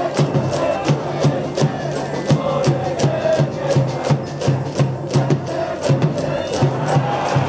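High-school baseball cheering section: a brass band playing over a steady drum beat of about three beats a second, with students chanting along.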